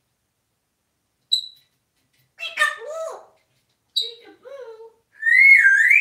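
African grey parrot vocalizing: a short high chirp, then a few speech-like mumbled calls, and near the end a loud whistle that rises, dips and rises again, the loudest sound here.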